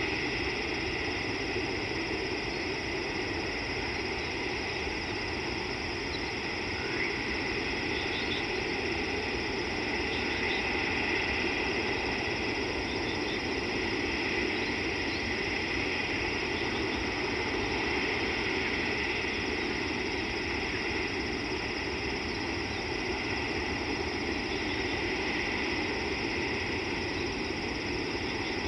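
Steady outdoor background hiss with no distinct event, and a few faint, short, high chirps scattered through the middle.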